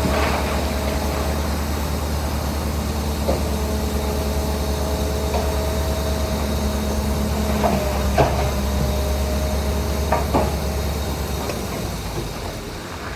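Heavy diesel earthmoving machine, a bulldozer, running steadily under load with a low drone and a few sharp metallic clanks. The low drone drops off about two seconds before the end and the sound grows quieter.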